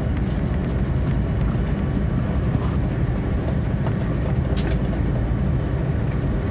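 Cabin noise inside an Airbus A330-300 rolling on the ground after landing: a steady low rumble, with a few light clicks.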